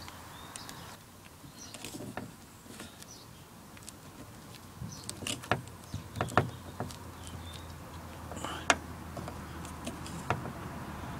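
Metal garden weeder prying at a plastic door-card clip lodged in a car door's mounting hole, with scattered scrapes and sharp clicks as the tool slips against the clip and the door metal. The clip does not come free.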